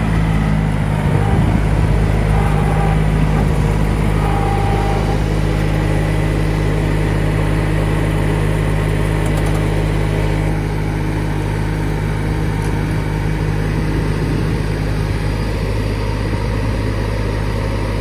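Small Solis compact tractor's diesel engine running steadily as the tractor drives with a backhoe on the back.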